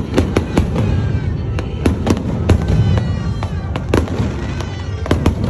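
Fireworks display going off: many sharp bangs in quick, irregular succession over a steady low rumble, with a stretch of crackling near the middle.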